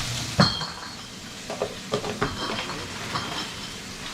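Bacon sizzling in a frying pan as its fat renders out, the hiss easing after the first half second. A sharp knock about half a second in, then a few lighter clicks.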